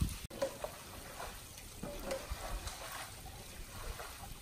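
Water trickling and spattering over soaked ground: a steady light hiss with scattered small drips and splashes.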